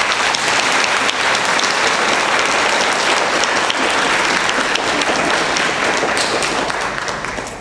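A crowd applauding: dense, steady clapping from many hands that fades away near the end.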